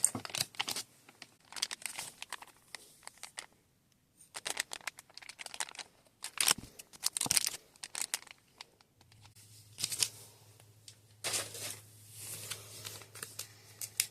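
Packaging being crinkled and torn open by hand, in irregular bursts of rustling and small clicks with short pauses between.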